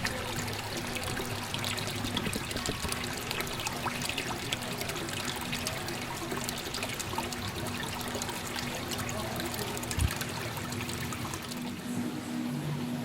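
Water pouring and trickling steadily into a large indoor fish tank, with a faint steady hum under it. A single sharp knock about ten seconds in.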